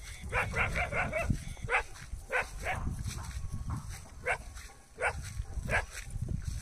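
Dogs barking repeatedly: a quick run of about five barks near the start, then single barks at uneven gaps of half a second to more than a second. A low rumble runs underneath.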